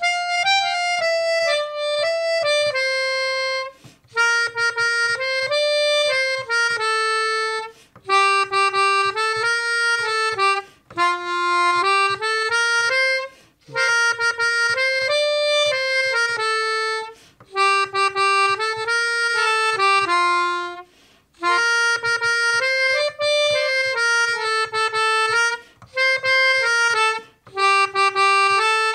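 Small two-manual keyboard organ played by hand: a melody, one note at a time, in short phrases broken by brief pauses.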